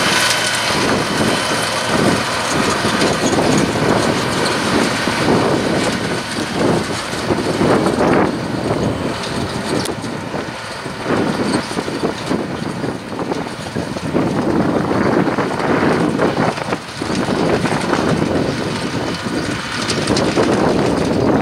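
New Holland T7030 tractor's six-cylinder diesel working under load, driving a Pöttinger loader wagon whose pickup and chopping rotor gather a swath of grass for silage. A dense, continuous mechanical din that rises and falls a little as it goes.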